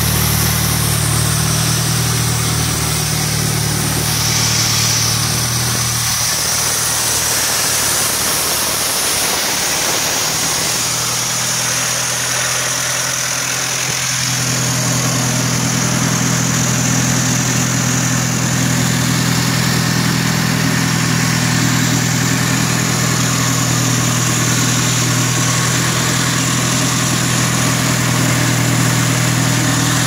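Diesel engine of a Husqvarna FS 4800 D walk-behind concrete saw running steadily. Its low hum thins for several seconds in the first half, then comes back fuller and holds steady.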